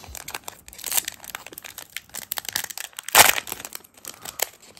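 Foil wrapper of a Panini Prizm Monopoly trading-card pack crinkling as it is torn open by hand, with a loud crackle about three seconds in.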